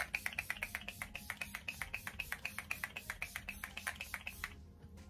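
Hyaluronic acid setting spray pumped rapidly from a fine-mist bottle: a fast run of short hisses, about eight a second, that stops abruptly near the end.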